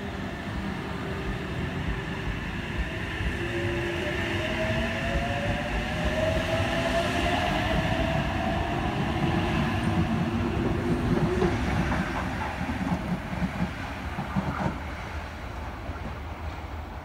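Sydney Trains OSCAR H-set electric train pulling out and gathering speed: its traction motors whine, rising in pitch, over the rumble of the cars rolling past. Toward the end the wheels click over the rail joints as the sound fades away.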